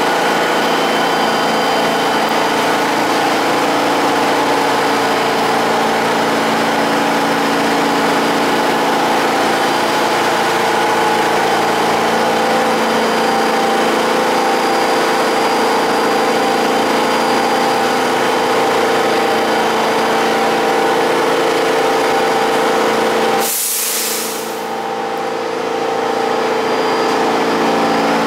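Pullman-Standard R46 subway car standing at a platform, its equipment giving a steady hum with several fixed tones. Near the end, a sudden sharp hiss of released air fades over about a second, and the hum drops for a few seconds before building back up.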